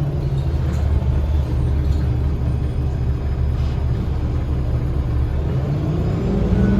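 Cummins ISL inline-six diesel of a 2010 Gillig BRT transit bus running under way, a steady low rumble mixed with road noise, heard from inside the bus. Near the end the engine pitch starts to rise as the bus picks up speed.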